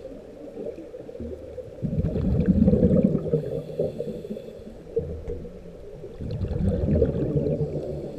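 Muffled underwater rushing of water around the camera housing, low in pitch, swelling twice.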